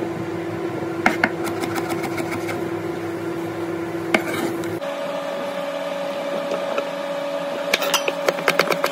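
Kitchen knife chopping okra on a wooden cutting board: two cuts about a second in, one around four seconds, then a quick run of chops near the end. A steady hum runs underneath and steps up in pitch about five seconds in.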